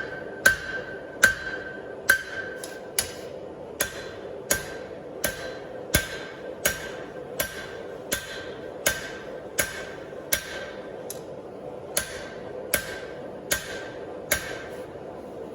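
Hand hammer striking hot steel on an anvil at a steady pace, about one blow every 0.7 seconds, each blow ringing briefly, stopping a little before the end. A steady hum runs underneath.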